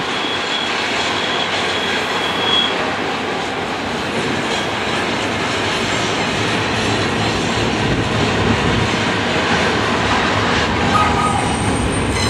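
Double-stack container train's well cars rolling past, with a steady loud noise of steel wheels on rail. A thin, high wheel squeal sounds over it for the first couple of seconds.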